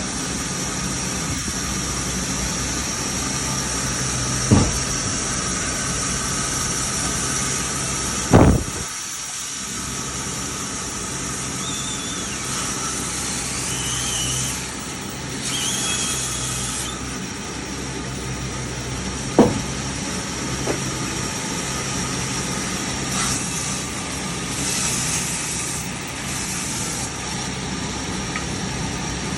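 An engine running steadily at idle, broken by three sharp thuds about four, eight and nineteen seconds in; the second thud is the loudest.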